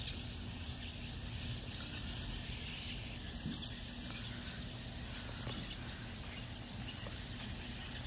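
A large flock of birds calling: many short, high chirps and squeaks overlapping in a faint, continuous chatter.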